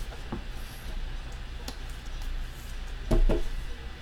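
A few light clicks and taps from handling, with two sharper taps close together about three seconds in, over a low steady hum.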